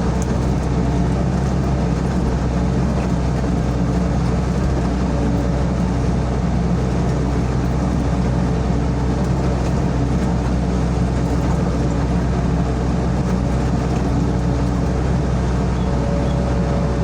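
SANY SY55C mini excavator's diesel engine running at a steady, unchanging pace while working.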